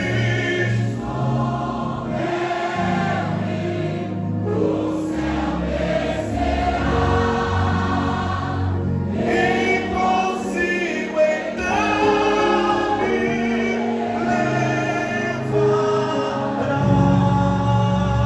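Gospel music performed live: several voices singing together over accompaniment with long held low notes.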